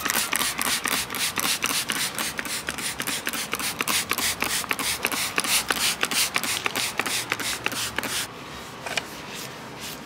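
Trigger spray bottle spritzed rapidly over and over, about four squirts a second, stopping about eight seconds in.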